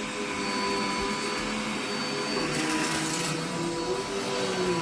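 Vacuum cleaner running steadily, its motor whine wavering slightly in pitch, with a brief rise in high hiss about two and a half seconds in. It does not sound like it's struggling.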